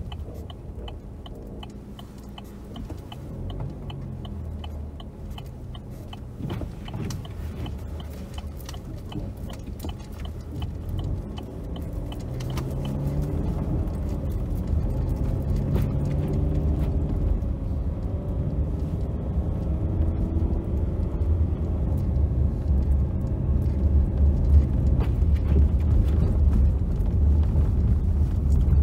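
Car cabin sound: the turn signal ticks steadily about twice a second for the first twelve seconds or so, then stops. After that, the engine and tyre noise on the snow-covered road grow steadily louder as the car picks up speed.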